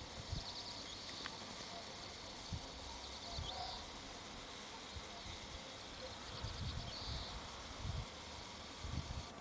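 A small bird singing a short, high trilled phrase about every three seconds, over irregular low rumbling bursts.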